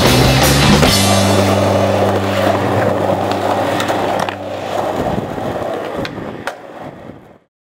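A rock band's closing chord is held and fades out under the sound of skateboard wheels rolling, with a couple of sharp board clacks near the end. Everything cuts off abruptly just before the end.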